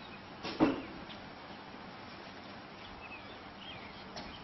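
Lighter-fluid-soaked charcoal burning with open flames in a kettle grill, a low steady hiss. A single sharp knock about half a second in, and a few faint high chirps near the end.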